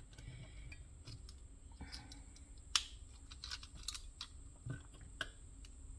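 Faint handling noise and small plastic clicks as fingers work the scroll wheel of a Microsoft Wireless Mobile Mouse 3500 loose from its mount. One sharp click comes a little under three seconds in, with a few lighter clicks after it.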